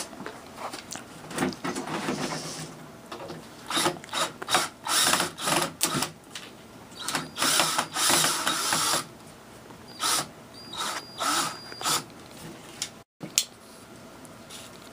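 Cordless drill driving a screw into the corner of a clad wood window sash frame, run in a series of short bursts of up to about a second each, with handling noise in between.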